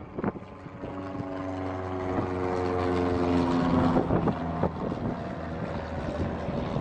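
Single-engine light propeller plane flying low overhead. The engine drone grows louder as it approaches, is loudest about halfway through, then eases off as it passes, its pitch dipping slightly. Some wind buffets the microphone.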